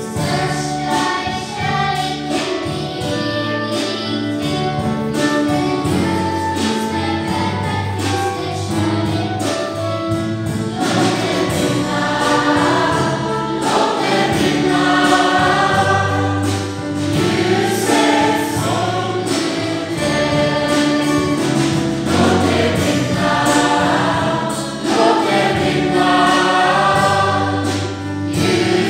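Mixed choir of men and women singing a hymn, accompanied by instruments that hold sustained low notes beneath the voices.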